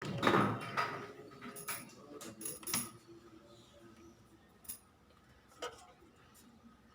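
Clinks and knocks of containers and glassware being handled in a refrigerator, busiest in the first three seconds, then a couple of single clicks.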